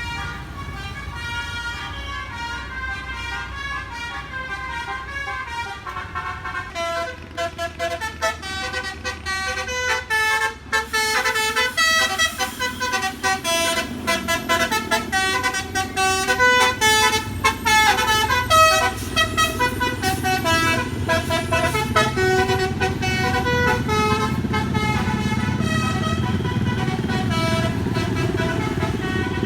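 Indonesian bus's basuri telolet horn, a multi-note air horn, playing a quick melody of stepped tones over the running engine. The melody gets louder about seven seconds in and is loudest around the middle.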